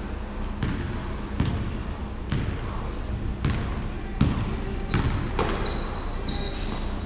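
Basketball dribbled on a hardwood gym floor, a bounce roughly every second, with several brief sneaker squeaks in the second half.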